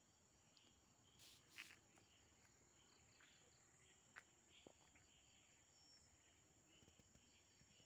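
Faint, steady high chirring of crickets or similar insects at dusk. A few soft clicks sound over it, the loudest about a second and a half in.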